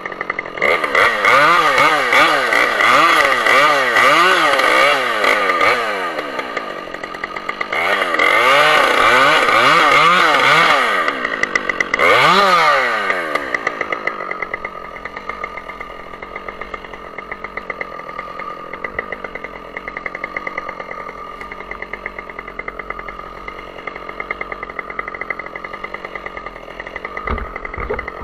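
Two-stroke chainsaw at high revs, its engine speed swinging up and down over and over for the first several seconds and again around the middle. About halfway through it drops to a steady, quieter idle that carries on.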